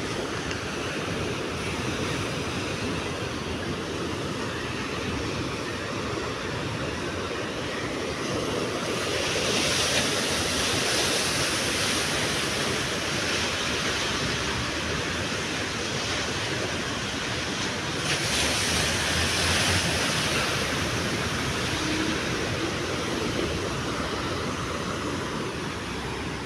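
Rough sea surf breaking along a rocky shore: a steady rushing wash that swells louder about nine seconds in and again at about eighteen seconds.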